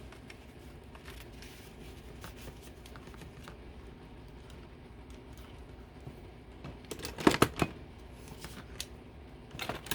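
Paper and craft supplies handled on a tabletop: light rustling and small clicks, with a cluster of sharp knocks about seven seconds in and another near the end.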